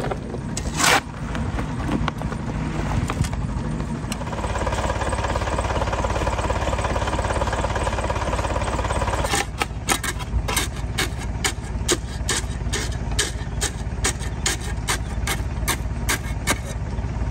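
Vintage Nuffield 4/60 tractor engine running steadily under a shovel working wet concrete into a point's frame. From about nine seconds in the shovel chops and tamps in a quick run of sharp knocks, about three a second.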